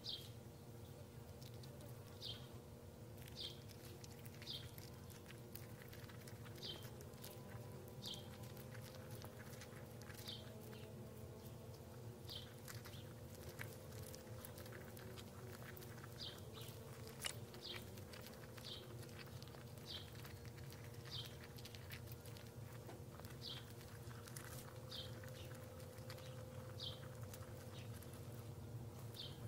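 Faint, short, high chirps that slide downward, repeated about once every second or so, over a steady low hum, with scattered small clicks.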